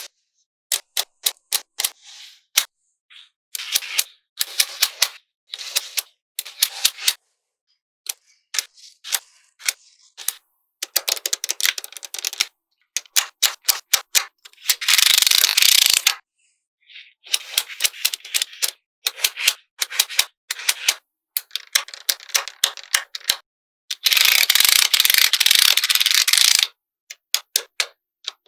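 Small magnetic balls clicking sharply together as they snap into place, in quick runs of clicks with short pauses. Twice the clicks run together into a longer, dense clatter, about a second and a half in the middle and two and a half seconds near the end.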